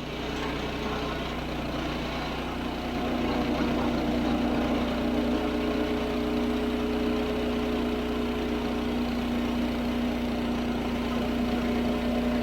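Woodland Mills portable bandsaw sawmill running, its engine holding a steady speed, a little louder from about three seconds in.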